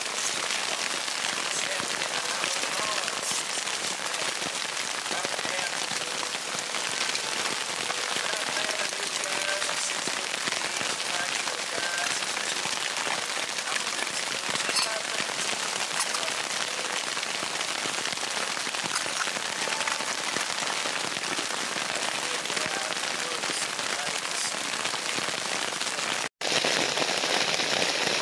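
Heavy rain falling steadily, a dense, even hiss of drops, cutting out for an instant near the end.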